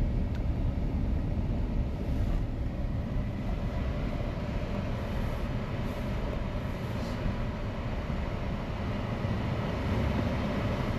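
Steady road and engine noise heard from inside a moving vehicle's cabin: an even low rumble with tyre hiss.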